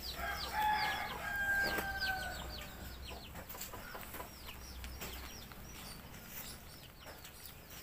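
A rooster crowing once, a long drawn-out call in the first two seconds or so, over rapid high chirping that repeats several times a second.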